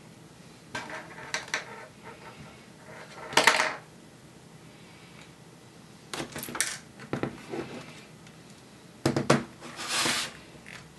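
Dell Latitude 3540 laptop's plastic casing being handled and turned over on a table: a series of knocks, clicks and short scrapes, loudest a little over three seconds in and again about nine to ten seconds in.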